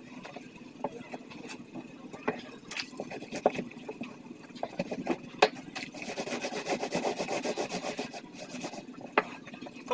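Clothes being scrubbed by hand, wet fabric rubbed against fabric in irregular strokes, with a quicker steady run of scrubbing for about two seconds past the middle.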